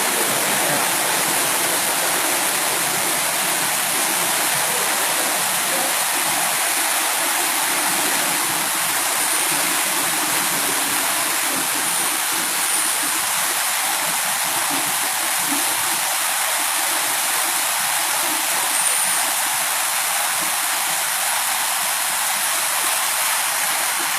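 Waterfall in raging, heavy flow: a loud, steady rush of falling water.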